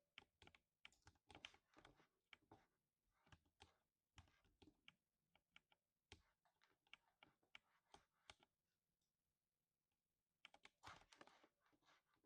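Faint typing on a lubed 60% mechanical keyboard: a quick, irregular run of key strokes with a deep thock. It pauses for about two seconds near the end, then a dense flurry of keys follows.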